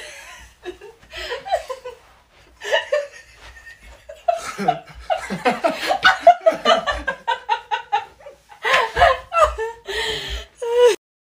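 Laughter in repeated fits of quick short bursts, loudest in the middle and near the end.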